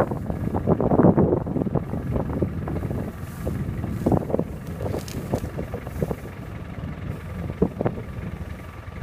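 Wind rumbling on the microphone, strongest in the first second or so, over the rustle and tearing of grass as an African elephant pulls up tufts with its trunk to eat.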